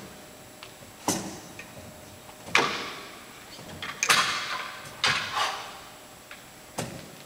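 Handling noises from a pair of 25-pound dumbbells being gripped off a wooden floor and pressed overhead: five short, sharp sounds a second or so apart, each dying away in the echo of a large hall.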